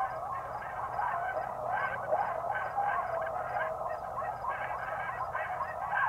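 A dense chorus of many animals calling at once: overlapping calls that waver up and down in pitch, pulsing in quick groups without a break.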